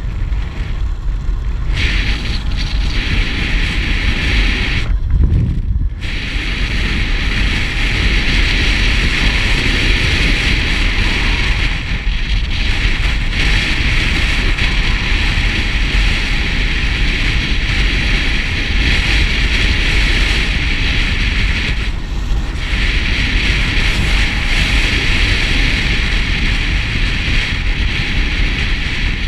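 Wind rushing over the camera microphone of a moving motorcycle, with the motorcycle's engine running underneath. The rush dips briefly twice.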